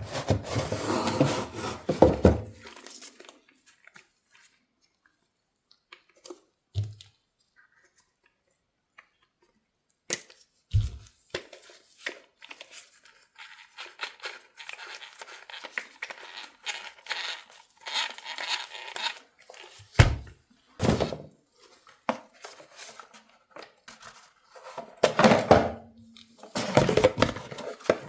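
Toy packaging being opened by hand: cardboard and plastic tearing and crinkling in bursts, with scattered knocks and clicks, and a few seconds of near quiet early on.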